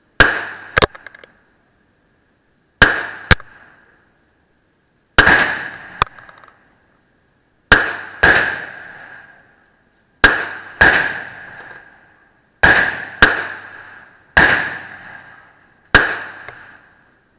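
Glock 19 Gen4 9mm pistol firing fourteen shots, mostly in pairs under a second apart, every two to three seconds. Each shot echoes off the walls of an indoor range.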